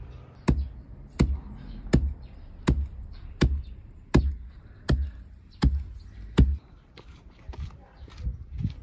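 Grain being pounded in a hollowed stone mortar: nine heavy, evenly spaced thuds about three-quarters of a second apart, then fainter, irregular knocks near the end.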